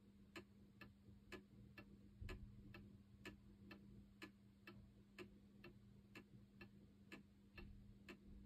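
Old pendulum wall clock ticking faintly and evenly, its escapement giving a tick and a tack about two a second (7200 beats an hour).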